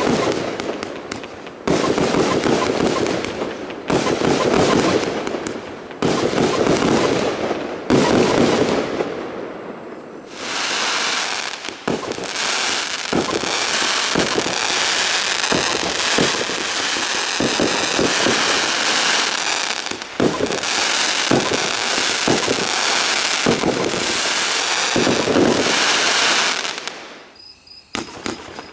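Zena Überblitz 30 mm compound firework cake firing: heavy shots and bursts about every two seconds at first. From about ten seconds in, a dense, rapid salvo of shots with hissing and crackling runs on, then dies away near the end.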